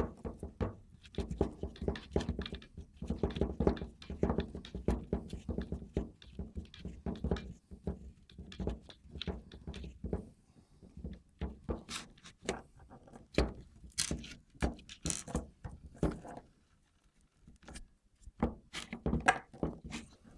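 Rapid clicking and knocking from an electronic parking brake unit and its cable being wound in by hand. The clicks come thick and fast for about the first half, then thin out to scattered knocks.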